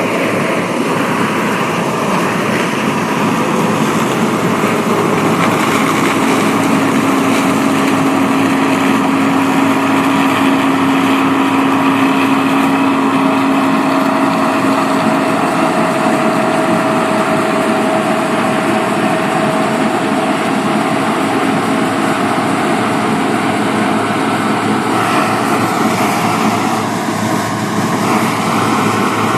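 Massey Ferguson 27 combine harvester running steadily in corn, a continuous engine and machinery sound with a steady whine; the tone shifts slightly about 25 seconds in.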